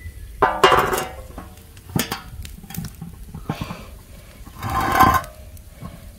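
Metal cookware being handled beside a pot of boiling water: a few clanks and knocks, with a ringing clatter about half a second in and the loudest clank about five seconds in.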